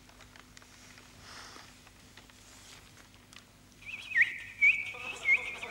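A man's whistled imitation of a bird call: near quiet at first, then about four seconds in a loud, high whistle with quick chirping upward flicks, repeated several times. The call is taken for a great tit.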